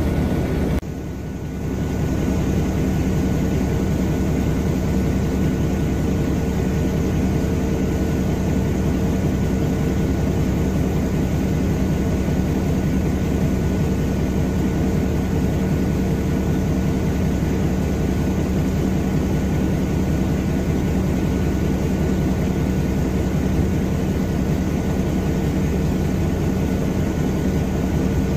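Mercedes-Benz O305 city bus heard from inside the cabin while driving: its diesel engine and drivetrain give a steady drone with a thin steady whine, dipping briefly about a second in.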